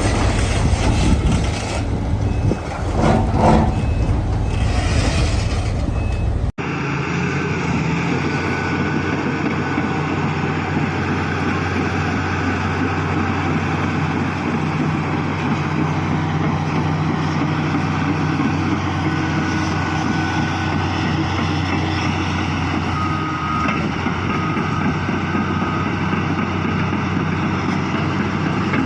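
Heavy diesel engine of a bulldozer running steadily. The sound changes abruptly about six seconds in to another stretch of steady engine running. A few short beeps come about two-thirds of the way through.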